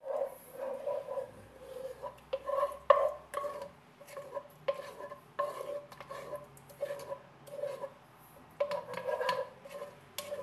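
Wooden spoon stirring a thin sauce in a cooking pot: quick, repeated scraping strokes against the pot's bottom and sides, with an occasional sharper knock.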